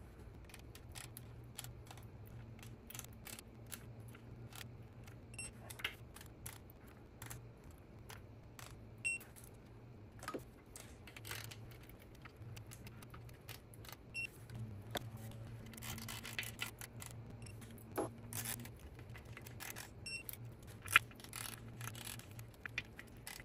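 Digital torque wrench tightening clutch pressure plate bolts to 23 Nm: irregular ratchet clicks and light metal tool clatter, with one louder knock near the end. A few short electronic beeps from the wrench signal the set torque being reached. A faint steady hum runs underneath.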